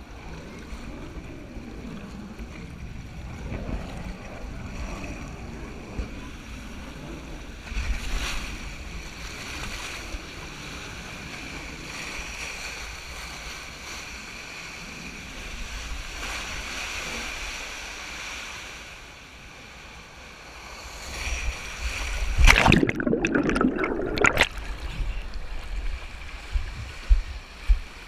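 Water rushing under an inner tube sliding down an open tube water slide, with wind buffeting the microphone. About three quarters of the way through there is a loud burst of splashing as the tube runs into the shallow run-out pool, followed by quieter water and a few thumps.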